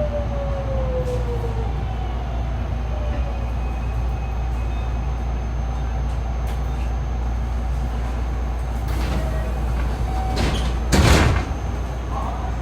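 Interior of a JR West 207 series electric train standing with a steady low hum, a thin falling tone over the first second or so, and a short, loud hissing burst about eleven seconds in, with weaker ones just before it.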